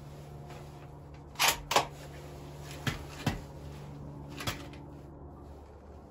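Savage Axis .270 bolt-action rifle being handled between shots, its action clacking. Two sharp clacks come about a second and a half in, two more around three seconds, and a last one near four and a half seconds, over a low steady hum.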